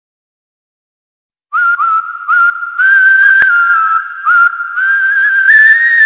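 Intro music: a breathy, whistle-like melody that comes in about one and a half seconds in after silence, in short phrases whose notes scoop up into a held pitch, with brief gaps between them.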